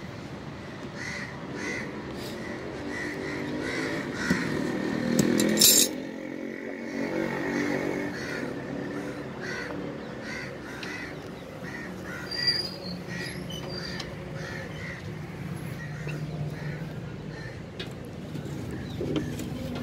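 Birds cawing repeatedly, short crow-like calls that keep coming. A motor hums underneath for a few seconds in the middle, and the loudest moment is a brief sharp scrape or clatter about five and a half seconds in.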